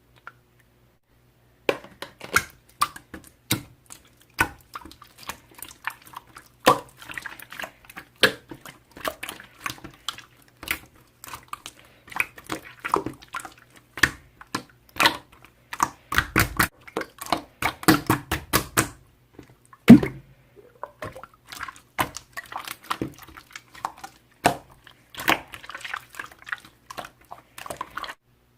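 Slime being squished and stretched by hand, a dense irregular run of wet clicks and small pops, with one louder pop about twenty seconds in.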